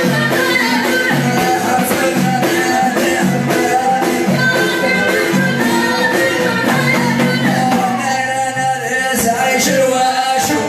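Live Amazigh ahidous music: male voices singing and a violin playing the melody over a steady beat of bendir frame drums.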